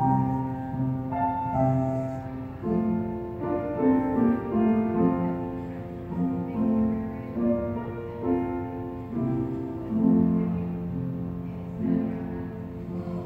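Slow instrumental music, piano-led, with held low notes under changing chords.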